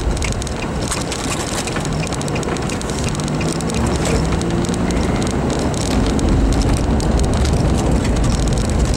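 Road noise heard from inside a moving car: a steady low rumble of tyres and engine, with wind rushing past the vehicle. A faint engine hum rises a little in pitch partway through.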